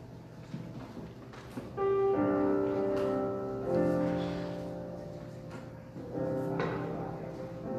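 Piano playing slow, sustained chords, a new chord struck about every two seconds and left to ring and fade.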